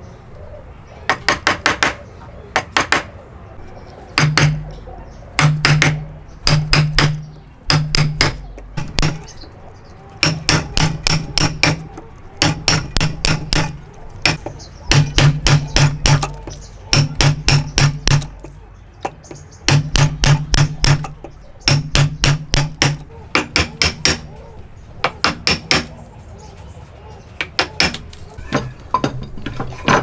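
Mallet striking a wood chisel to chop a mortise in a timber: quick runs of sharp blows, several a second, broken by short pauses between runs.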